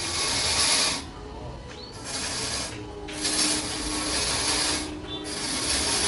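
Sawmill machinery running: a rasping mechanical noise that eases off briefly every second or two, over a steady motor hum.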